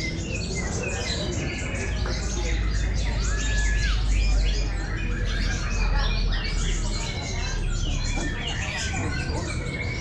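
A dense chorus of caged kolibri ninja sunbirds chirping and trilling over one another, many short rapid calls at once, the birds competing in song. A low rumble runs under them from about two to six seconds in.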